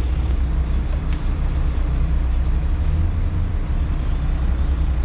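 Hyundai excavator's diesel engine idling steadily, a low, even rumble.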